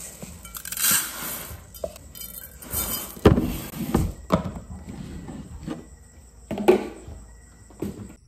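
Uncooked rice poured from a container into a rice cooker's metal inner pot in a few short rattling spills, with several sharp knocks of containers and the pot set down on a hard counter.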